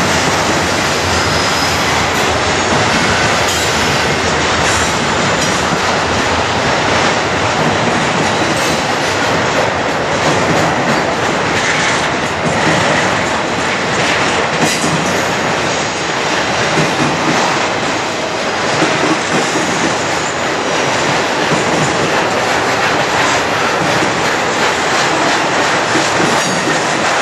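Freight train's double-stack container cars and flatcars rolling past: a loud, steady rumble and rattle of steel wheels on rail. Scattered clacks come at the rail joints, with a faint high wheel squeal over it.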